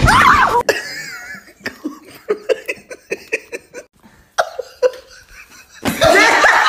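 People laughing in short bursts, with a loud water splash right at the start.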